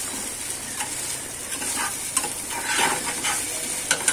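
Maggi noodles sizzling as they fry in a stainless steel pan, with a spoon stirring and scraping them against the pan in a few soft strokes.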